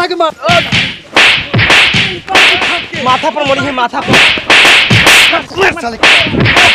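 A rapid series of sharp whip-like lashes and slaps, about two a second, with a voice crying out between some of them.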